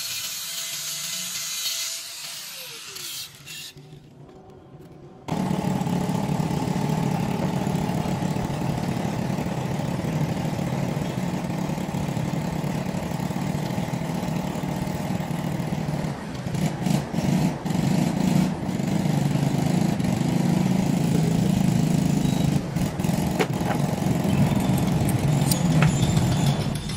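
A machine with a motor starts abruptly about five seconds in and runs steadily, with a few brief dips later on.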